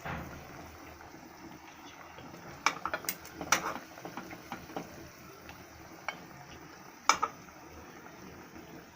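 A spoon knocking and scraping against a kadai as boiled chicken pieces are lifted out of their cooking water. The knocks come scattered, a few close together in the middle and a double knock near the end, over a low steady background.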